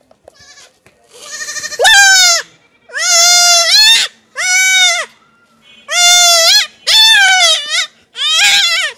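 A goat kid bleating loudly and over and over, about six high cries in quick succession, each under a second long. The kid is held on its back and castrated, and the cries are distress calls.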